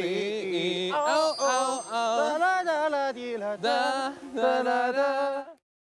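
Background pop song with a sung vocal line, held and gliding notes over music. It cuts off suddenly shortly before the end, leaving a moment of silence.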